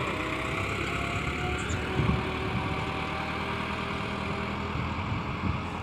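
Farm tractor engine running steadily while pulling a ridging implement through the soil, with a brief thump about two seconds in.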